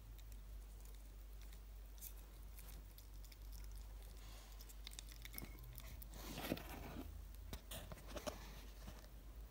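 Hedgehog chewing soft fruit, a faint run of small wet smacks and clicks that grows busier and louder about halfway through, over a low steady hum.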